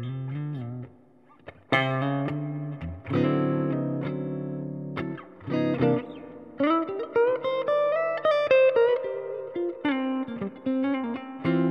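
1976 Gibson Les Paul Deluxe electric guitar with mini-humbucker pickups, played through a Fender Princeton amp with a 12-inch speaker. Chords are struck and left to ring, then a melodic phrase of sustained single notes, one sliding up, followed by shorter picked notes.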